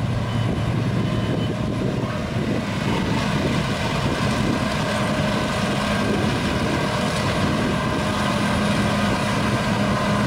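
Claas Lexion 750 combine harvester running while harvesting: a steady engine drone with the rush of the threshing machinery, growing louder as it drives close by.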